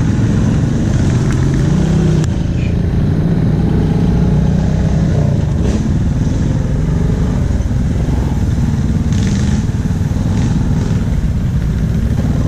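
Single-cylinder Honda Rubicon ATV engine running steadily as the quad drives along a wooded dirt trail, with a few brief swishes of brush against the machine.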